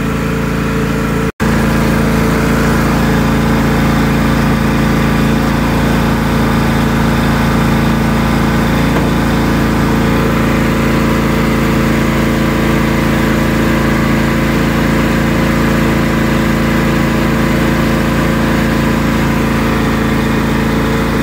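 John Deere X380 lawn tractor's Kawasaki V-twin engine running steadily at an even speed, with a brief break about a second in.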